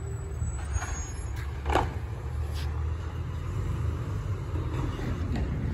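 Recycling garbage truck's diesel engine running down the street: a steady low rumble. A short, sharp noise comes about a second and a half in.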